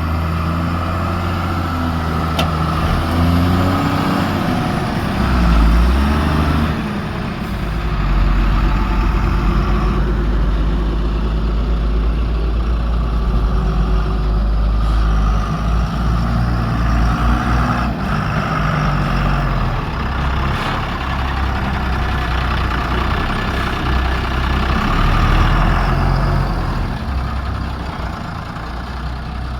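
Diesel engine of a JCB backhoe loader running hard while digging and loading soil, its pitch rising and falling a few times in the first several seconds as the hydraulics take load.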